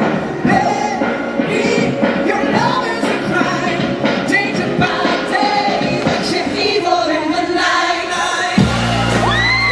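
Male pop singer singing live with a band playing behind him. About a second before the end a heavy bass line comes in and high whoops from the audience rise over the music.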